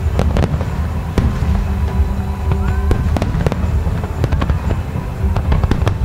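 Fireworks display: aerial shells bursting with deep rumbling booms and many sharp cracks, with a quick run of cracks near the end.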